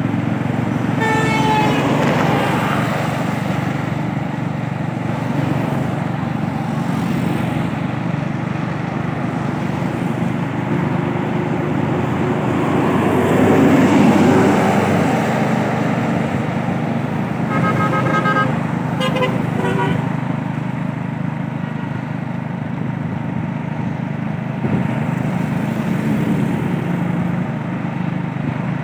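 Steady engine and road noise from a vehicle moving along a wet road. A vehicle horn toots near the start and again in a few short toots about two-thirds through, and a passing vehicle briefly swells the noise around the middle.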